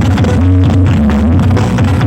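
Very loud electronic dance music blasting from a large carnival sound-system rig, with a heavy, steady bass.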